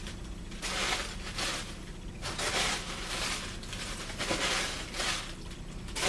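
Packaging rustling and crinkling in repeated short bursts as hands dig through an opened mail package.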